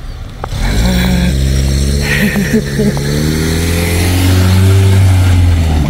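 A motor vehicle's engine running loud and close, starting about half a second in as a steady low hum whose pitch drifts slightly, then dropping away near the end.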